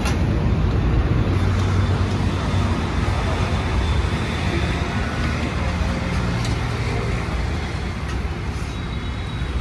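Steady road traffic noise: vehicle engines running with a constant low hum.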